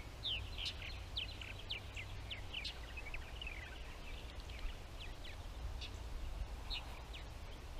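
Purple martins calling: a continuous run of short, quick chirps and squeaky notes from several birds at once, some notes rising and some falling.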